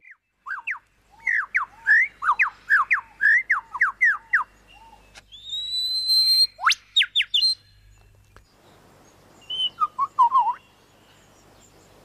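Superb lyrebird singing: a fast run of loud whistled notes that sweep downward, then about halfway through a rising note followed by sharp whip-like sweeps, and a shorter cluster of notes near the end.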